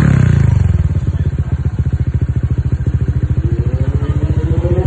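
Honda Click 125i scooter's single-cylinder four-stroke engine running through a JVT V3 aftermarket exhaust pipe, being blipped for a sound check. The revs drop back from a peak in the first second, run low for a couple of seconds, then climb again in a rising rev near the end.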